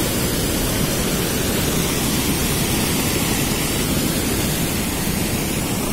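A large waterfall pouring over a rock ledge into a gorge: a steady, unbroken rush of water.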